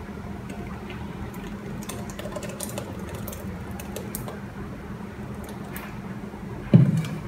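Thick blended falsa juice poured from a blender jar through a metal mesh strainer into a plastic bowl, with scattered small clicks and ticks. A dull thump near the end.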